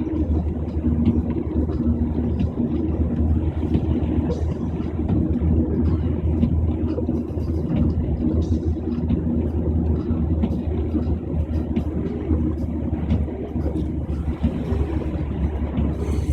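Car driving on a highway: a steady low rumble of engine and road noise with scattered faint ticks.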